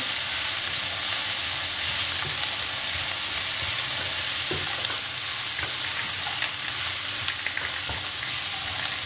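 Shredded cabbage, carrot and peas sizzling in hot oil in a non-stick wok while being stir-fried with a spatula. A steady sizzle, with a few light scrapes and taps of the spatula on the pan in the second half.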